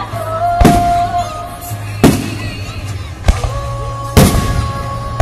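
Aerial fireworks shells bursting: four loud booms about a second apart, each trailing a short crackle. Music plays underneath.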